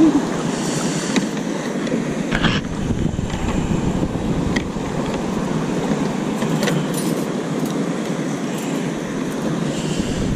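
Steady wind buffeting the microphone over water washing around a kayak on choppy sea, with a few light clicks and rattles of the metal fish lip grip and tackle being handled.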